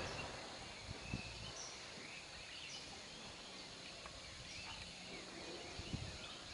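Faint open-air ambience: a steady soft hiss with scattered short, high bird chirps.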